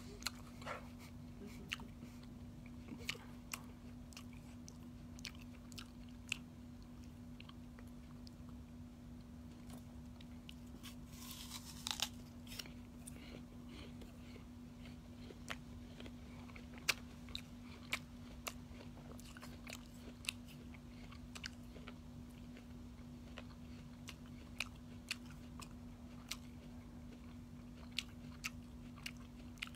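A person chewing close to the microphone: scattered small clicks and smacks over a steady low hum, with a brief hiss about eleven seconds in.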